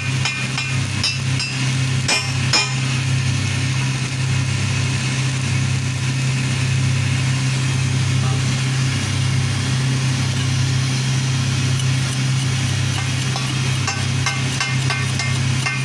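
Electric arc welding: a steady low buzz from the welder and arc with crackling over it, and a few sharp clicks about two seconds in and again near the end.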